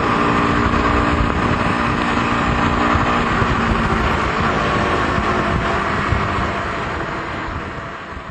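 KTM RC 125 single-cylinder motorcycle on the move: steady engine and rushing wind noise, fading away over the last few seconds.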